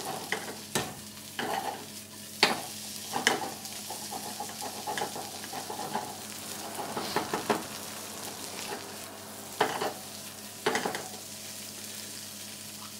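Cubed potatoes sautéing in butter and olive oil in a small frying pan on a gas burner, sizzling steadily as they brown. Now and then come sharp knocks and scrapes as the pan and potatoes are worked.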